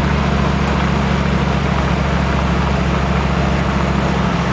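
Heavy-haulage tractor units' diesel engines running steadily at low speed while pulling a very heavy load, a deep, even drone with no change in pitch.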